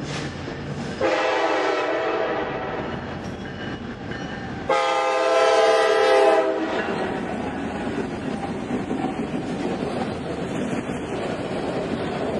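Norfolk Southern diesel freight locomotive sounding its horn in two blasts, a chord of several notes: a shorter one about a second in and a longer one of about two seconds midway. Then the steady noise and clatter of autorack cars rolling past on the rails.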